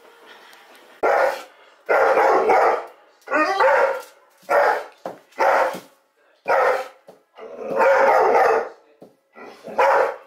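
Dog barking hard and repeatedly from about a second in, some barks short and some drawn out: excited barking that greets someone arriving at the door.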